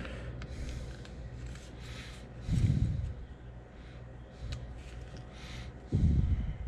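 Quiet handling of adhesive vinyl stripe stencils, peeled from their backing with tweezers and pressed onto a plastic crankbait, with a few faint ticks. Two low, muffled puffs of breath, about two and a half seconds and six seconds in, are the loudest sounds.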